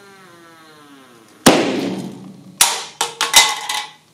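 Hydrogen burning at the hole in a Pringles can gives a faint buzzing whose pitch falls steadily as air is drawn in toward the ideal combustion ratio. About a second and a half in, the hydrogen–air mixture inside the can explodes with one sharp bang, followed by several clattering knocks as the can and lid land on the table.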